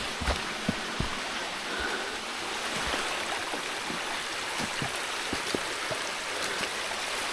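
Mountain stream running steadily over rocks, flowing higher than usual after days of heavy rain, with scattered light knocks over it.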